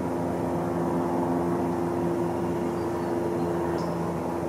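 An engine running steadily, giving an even, unchanging hum.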